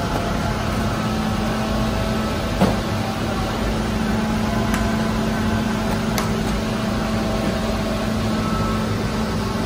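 Steady electric hum of bakery machinery running, with one sharp knock about two and a half seconds in and a couple of faint clicks later.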